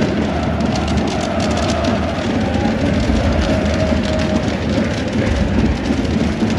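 Loud, steady noise of a stadium crowd, with the hiss and rapid crackling of pyrotechnics: burning flares and firework fountains going off in the stand. The crackles are thickest in the first couple of seconds.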